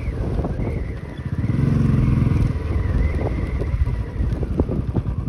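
Motorcycle engine running under way, with a low rumble; the engine note swells louder for about a second near the middle.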